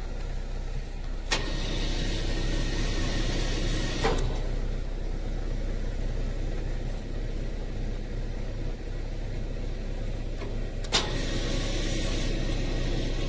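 Car carrier trailer's hydraulic deck system running as a floor section is moved from the control pendant: a steady mechanical hum with three sharp clunks, about a second in, around four seconds and near eleven seconds.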